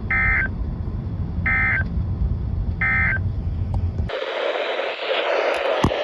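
Three short bursts of Emergency Alert System SAME data tones, a warbling digital squawk about a second and a half apart, marking the end of an alert message. They play over a low rumble, and about four seconds in the sound cuts to a steady radio hiss with a sharp click near the end.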